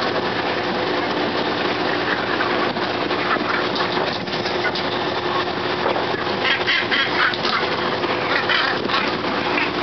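Harsh, grating seabird calls, several squawks in separate bursts, over a steady engine hum.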